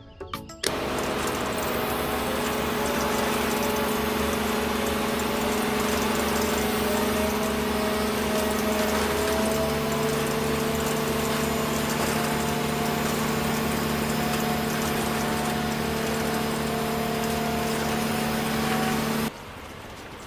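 Small electric gear motor running steadily, driving a toy model oil pumpjack: a continuous whine whose pitch creeps slowly upward over the run. It cuts off abruptly near the end, leaving a much quieter sound.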